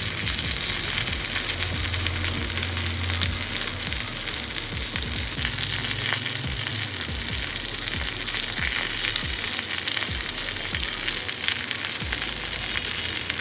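Yogurt-marinated chicken legs frying in oil and butter in a shallow pan, sizzling steadily with a constant patter of small crackles.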